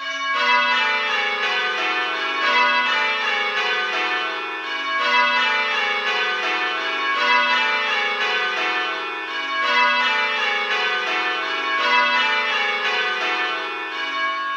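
Simulated tower bells in the Abel change-ringing program, using recorded Worcester Cathedral bell sounds, ringing rows of strikes that each run down the scale and repeat about every two and a half seconds. The user's own bell, the second, is set to sound slightly louder than the simulated bells.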